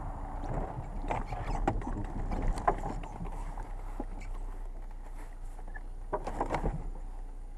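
Low rumble with scattered light knocks and rustles as a shotgun is handled and aimed through a car window, the loudest knock about three seconds in.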